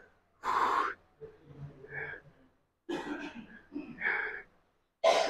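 A man breathing hard and exhaling forcefully, roughly once a second, as he strains through a heavy set of single-arm dumbbell lateral raises. The loudest breath comes about half a second in.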